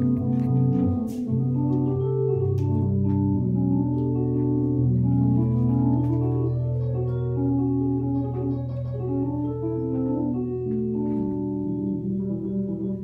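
Improvised music of sustained, organ-like keyboard chords changing slowly over a steady held low bass note, with a few faint clicks and taps.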